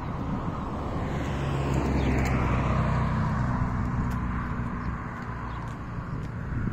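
A car driving past on the adjacent road: tyre and engine noise swells to a peak about two seconds in, then fades away over the next few seconds.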